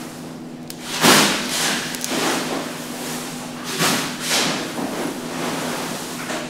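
A long knife cutting the bones out of a large grouper's belly fillet on a cutting board: a series of short scraping strokes as the blade slices through the flesh along the bone, the loudest about a second in.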